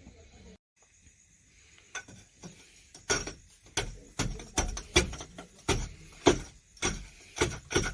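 A run of sharp knocks, about two a second, starting about two seconds in and growing louder.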